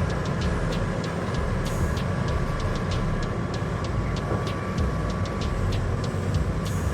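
Heavy mining machinery running: a steady, dense low diesel rumble with frequent light ticks or clicks over it.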